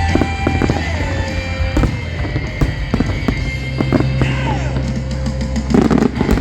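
Fireworks bursting and crackling over a music soundtrack with sustained low notes, with a dense cluster of loud bangs near the end.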